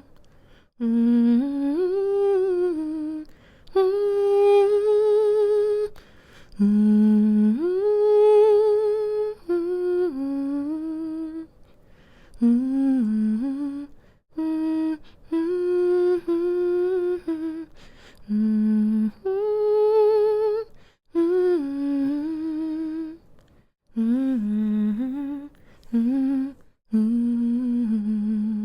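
A woman humming a slow, soothing lullaby-like tune to lull a baby to sleep, in short phrases of held, gently wavering notes with brief pauses between them.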